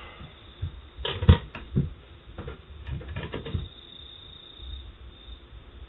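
A few light taps and clicks from small metal parts and tools being handled while speaker terminals are tinned with a soldering iron: a cluster about a second in and another around three seconds in, then only faint hiss.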